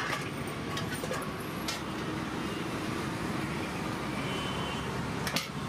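Steady background noise with a few sharp clinks of a steel ladle against steel serving pots as gravy is ladled out, the loudest about five seconds in.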